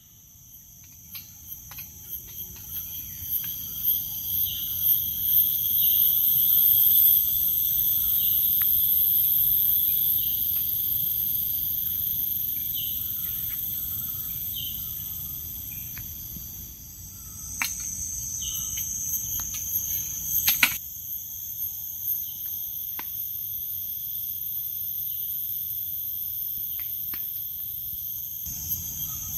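Tropical rainforest insect chorus: steady, high-pitched buzzing and shrilling at several pitches at once, with a pulsing call in the first half. It swells over the first several seconds and then eases. A few sharp clicks come a little past halfway.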